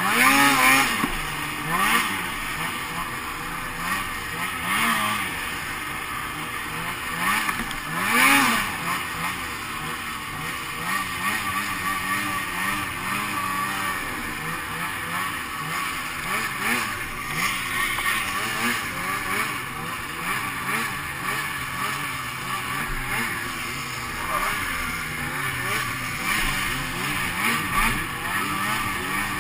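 Snowmobile engine revving as the sled runs along a snowy ditch, its pitch surging up and falling back several times in the first eight seconds, then holding a steadier, wavering note at speed, with a steady rushing noise underneath.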